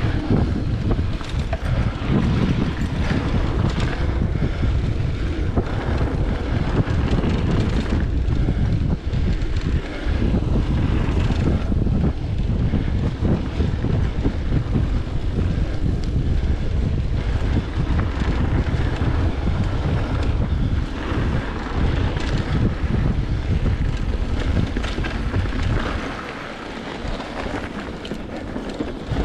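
Wind buffeting the microphone of a handlebar- or helmet-mounted camera on a mountain bike ridden along a dirt singletrack, a steady low rumble mixed with tyre noise and small rattles of the bike over bumps. The rumble eases for a couple of seconds near the end.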